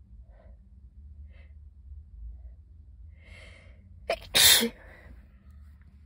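A sneeze: a few faint catching breaths and a gasping in-breath as it builds, then a brief sharp catch about four seconds in and straight after it the loud sneeze.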